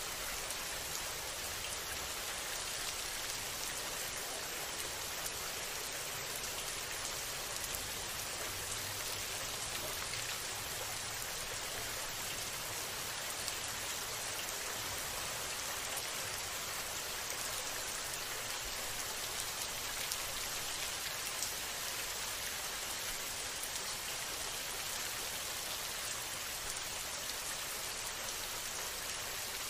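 A steady rain ambience: an even hiss of falling rain with faint fine patter, unchanging throughout.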